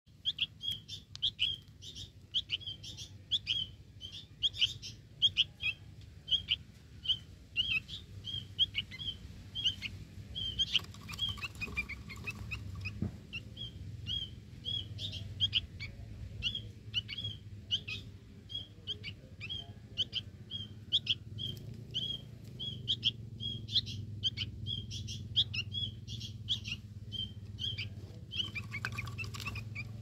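Young sooty-headed bulbul chirping: short, sharp calls repeated about twice a second, broken twice by a longer call that falls in pitch.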